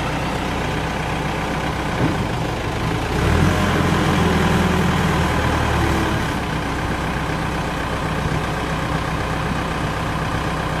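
Diesel engine of a 2008 Volvo BL70 backhoe loader idling steadily just after start-up. It runs louder and deeper for about three seconds in the middle, then settles back to idle.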